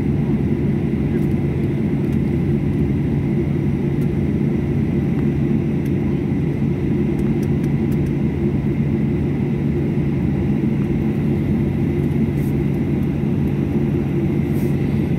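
Steady cabin rumble of an airliner taxiing, its engines running at low taxi power, heard from inside the cabin, with a low hum and a faint high whine.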